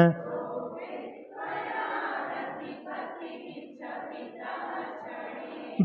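A group of people chanting a line of a Sanskrit hymn verse together, off the microphone, in call-and-response after the leader. The voices are soft and blurred together in a few short phrases with small breaks.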